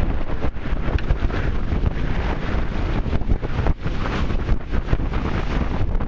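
Wind buffeting the microphone on a catamaran sailing fast, with water rushing past the hulls beneath it.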